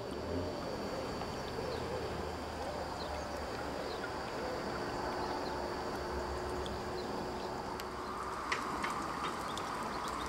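Steady outdoor background noise at a railway station, with faint indistinct sounds and a few sharp clicks about eight and a half seconds in.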